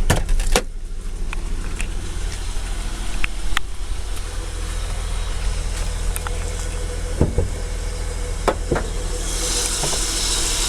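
A Holden Commodore's 3.8 litre Ecotec V6 idling steadily, with a few sharp clicks and knocks over the idle. A high hiss comes in near the end.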